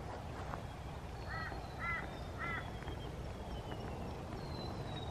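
A bird calling three short times, about half a second apart, over a quiet forest background.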